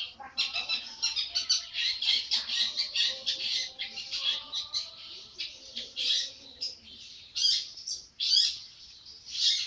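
Young long-tailed shrike, about 80 days old, singing busily: a rapid stream of harsh, scratchy chattering notes, most crowded in the first few seconds and then coming in separate bursts.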